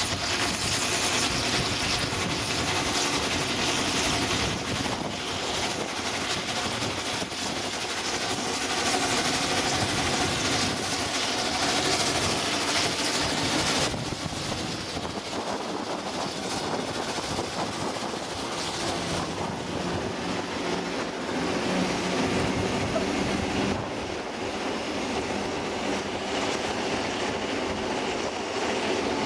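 A steam tank locomotive and a diesel shunter running side by side on parallel tracks, heard from the steam engine's cab: a steady mix of engine and wheel-on-rail noise with some clickety-clack. The sound changes abruptly about halfway through.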